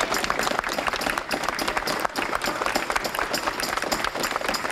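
Crowd applauding, many hands clapping densely and steadily.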